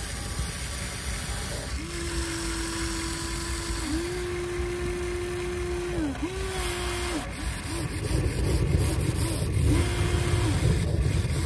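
Huina 1593 RC excavator's electric motors whining at one steady pitch as the boom lowers and the bucket digs, the pitch dipping each time a movement stops and starts again. Later come short whine chirps over a louder low rumble.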